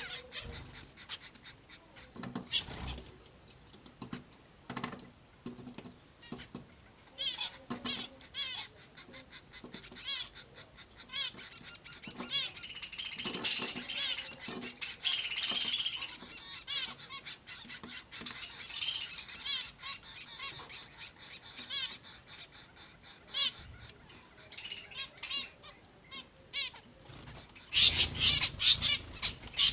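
Zebra finches, chicks begging to be fed, giving rapid high-pitched chirps that run on continuously, with louder flurries around the middle and near the end.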